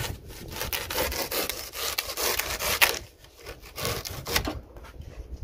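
Rapid back-and-forth sawing strokes of a blade cutting through material, a dense run for about three seconds, a brief pause, then a shorter run before it eases off.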